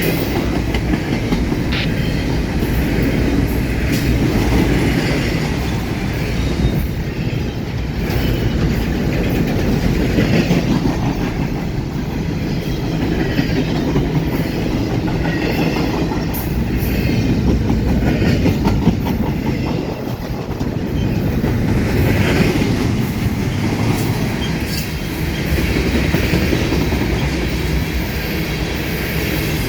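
CSX freight train's cars rolling past: a steady rumble with the clickety-clack of wheels over rail joints, and some wheel squeal now and then.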